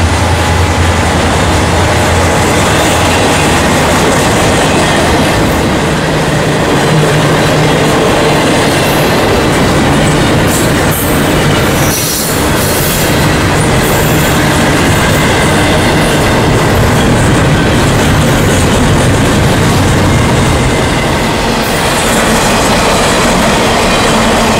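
Steady, loud rumble and clatter of a long intermodal freight train's cars rolling past on the rails: trailers on flatcars, then double-stack container cars.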